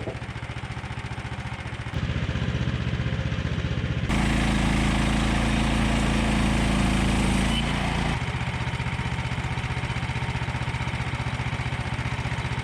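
Small gas engine of a portable bandsaw sawmill running, stepping up in speed about two seconds in. From about four to eight seconds the blade cuts through a squared maple log, much louder, then the engine runs on steadily.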